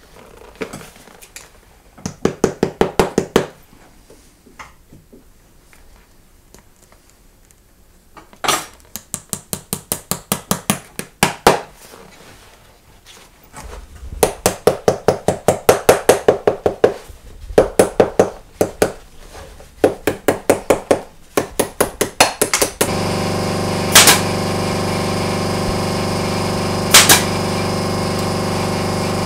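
Shoemaker's hammer tapping leather over a last in quick runs of light blows, several a second. Near the end a hand-held power tool starts and runs steadily with a hum and hiss, with two sharp knocks over it.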